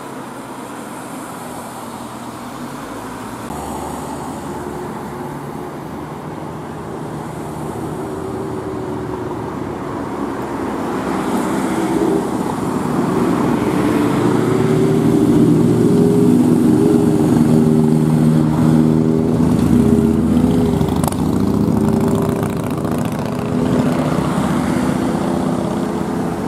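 A steady rushing noise, joined about ten seconds in by an engine's droning hum that grows louder and wavers slightly in pitch.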